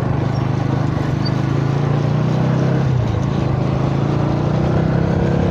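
Motorcycle engine running steadily while riding at cruising speed, its low hum holding an even pitch, under a constant rush of wind and road noise.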